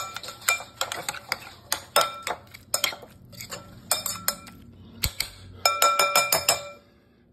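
Metal spoon stirring a mix of ground chicken and fried egg in a glass bowl, clinking against the glass again and again with short ringing tones. A quick run of clinks comes about six seconds in.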